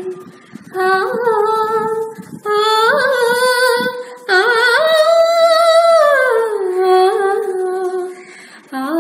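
A young woman singing solo without accompaniment, in phrases with short breaths between them, with a long note held about four to six seconds in.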